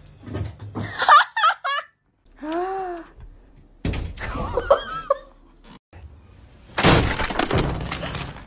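Cats meowing and chirping in a few short rising-and-falling calls, then a loud crash of something breaking near the end.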